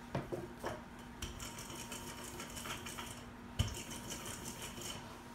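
Hands pressing and smoothing crumbly crust dough on a springform pan's metal base: soft rubbing and scraping, a few light clicks, and one sharper knock about three and a half seconds in.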